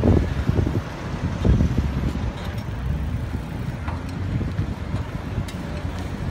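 Street noise heard while riding along: a steady low rumble of wind buffeting the microphone mixed with passing road traffic, with a few faint ticks.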